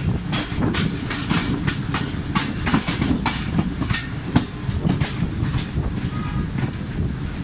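Passenger train running along the track, heard from aboard the carriage: a steady low rumble with an irregular clatter of wheels over the rails, and one sharper knock a little past halfway.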